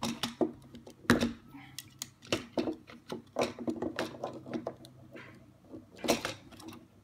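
Irregular small plastic clicks and taps as fingers work wire connectors loose from a MIP robot's circuit board and handle its plastic shell, the sharpest clicks about a second in and near the end.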